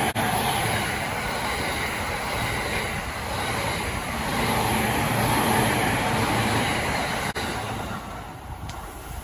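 A train passing at a railway level crossing, its wheels and running gear making a steady, loud rumble on the rails that begins to fade about eight seconds in.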